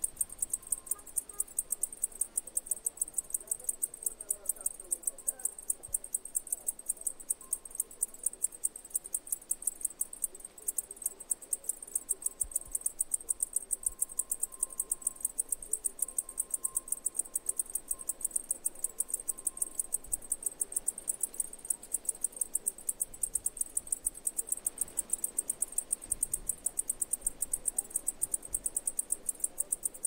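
Cicada calling in a steady, unbroken train of rapid, high-pitched pulses.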